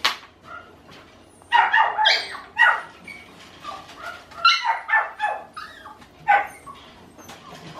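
Puppy yapping and whining in short, high-pitched calls that come in several clusters, with a sharp yap right at the start.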